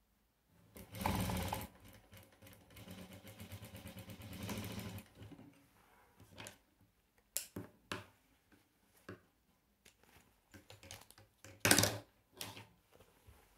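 Sewing machine stitching a seam in one run of about four seconds, a fast even needle rhythm. Then scattered clicks and knocks, the loudest about twelve seconds in.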